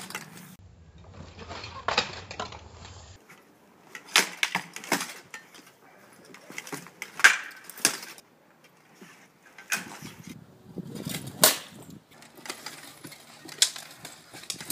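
Swords clashing and striking a wooden shield and armour during a sparring bout: irregular sharp clacks and knocks, one every second or two.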